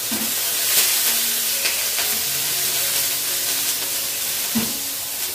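Beefsteak frying in a pan with plenty of hot oil: a steady loud sizzle with faint crackles as the oil spatters.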